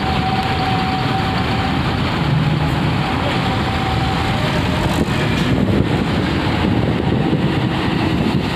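Steady running of vehicle and ship engines at a ferry dock, as a coach bus drives slowly up to the ferry's bow loading ramp.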